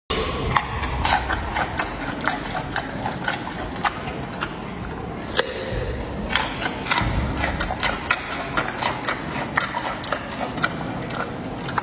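Giant panda chewing raw carrot, with crisp crunches coming irregularly several times a second.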